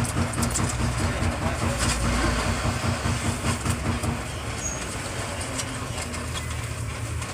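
An engine running steadily with a low hum, and scattered light metallic clicks and taps over it; a higher tone in the hum drops away about halfway through.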